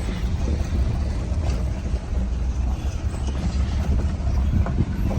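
Vehicle engine running steadily with a deep rumble, heard while riding, with a few light knocks and rattles.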